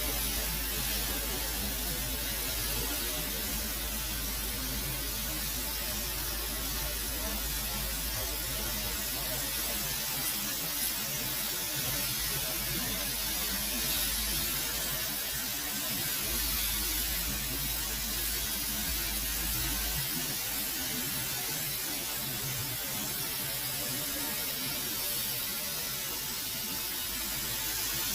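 Pressure washer jet spraying a dirty alloy wheel: a steady, hard hiss of water that runs on without a break.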